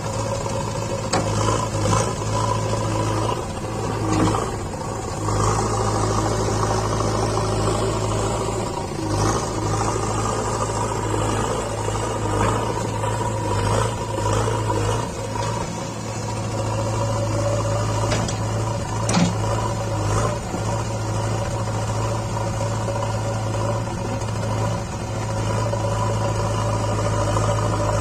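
JCB 3DX backhoe loader's diesel engine running under varying load, its note swelling and easing, with a steady whine over it and a few short knocks.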